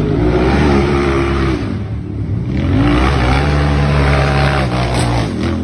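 Side-by-side UTV engine revving hard under load as it climbs a steep dirt hill, pitch rising and falling in two long surges.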